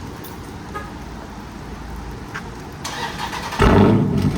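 Dodge Charger's HEMI V8, with its resonators and mufflers cut off, being started: a short crank about three seconds in, then the engine fires loudly about three and a half seconds in and runs on with a deep, loud idle through the open exhaust.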